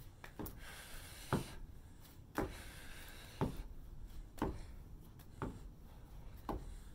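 Soft, short knocks about once a second, in time with a stone exercise: a rock is passed hand to hand under a raised knee while the lifted foot comes down on a wooden deck.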